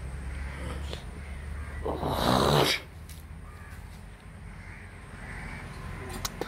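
A crow cawing once, a single harsh call just under a second long about two seconds in.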